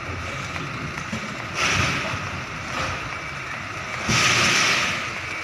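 Container truck running low while it manoeuvres, with two short loud hisses of released air from its air brakes, about a second and a half in and again about four seconds in, the second one longer and louder.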